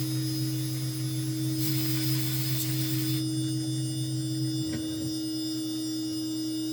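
Cue Demon CNC spindle running at speed while cutting a small solid inlay, a steady hum with high whining tones. A hiss joins for about a second and a half near the start, and a short click comes a little after the middle, where the low hum drops.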